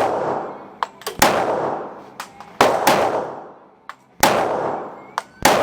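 Glock 23 .40 S&W pistol firing a steady slow string: four sharp shots about a second and a half apart, each followed by a long fading echo, with a fainter crack shortly before each shot.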